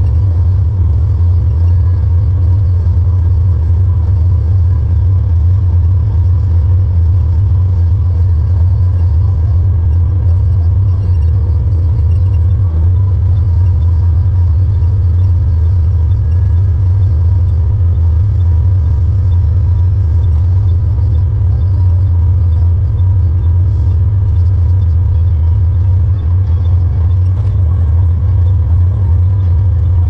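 Steady low rumble of a tractor pulling a square hay baler through the field, a constant machine drone with faint steady whines above it.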